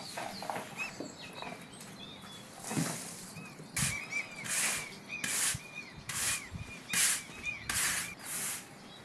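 Push broom sweeping stone paving slabs in short, regular strokes, about one every three-quarters of a second from about four seconds in. A bird chirps repeatedly in short, arching notes through the middle.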